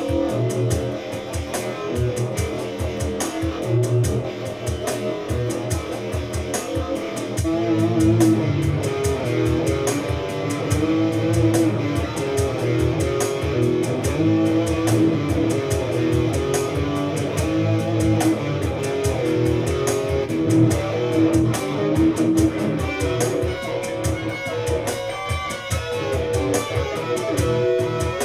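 Electric guitar played on its neck pickup with a dark but defined tone, improvising melodic lines over a steady beat.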